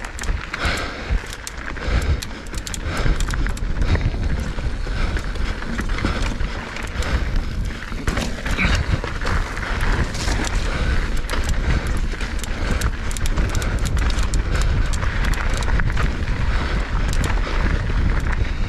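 Mountain bike riding fast down a gravel trail: tyres crunching over loose stones and the bike rattling, with constant quick clicks and knocks, over wind buffeting the microphone.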